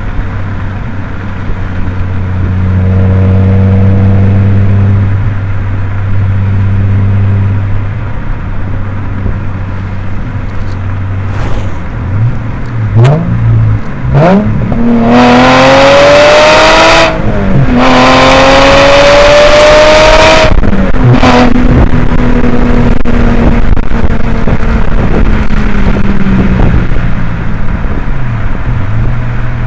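Subaru Legacy 3.0R Spec.B's EZ30R flat-six with its muffler deleted, heard with wind on the microphone: running steadily at cruise, then a few quick revs about halfway. It then pulls hard twice, rising in pitch with a short shift break between the pulls, before easing off and falling slowly in pitch as the car slows.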